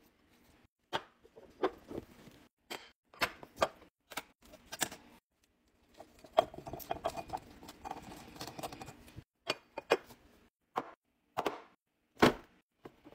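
Food containers and packaging being handled and set down while a fridge is restocked: a series of separate sharp clicks and knocks, with a longer stretch of quick rattling clinks in the middle.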